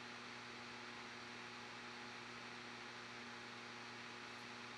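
Faint steady electrical hum over a low hiss: room tone, with nothing else sounding.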